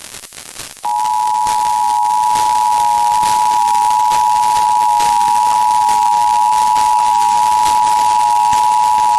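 Emergency Alert System two-tone attention signal, the 853 Hz and 960 Hz tones sounded together, starting about a second in and holding steady over a hiss of radio reception. It heralds the spoken alert, here a required monthly test.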